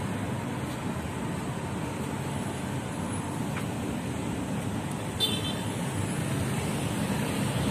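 Steady city road traffic noise, a low rumble of passing vehicles. About five seconds in, a brief high-pitched sound cuts through.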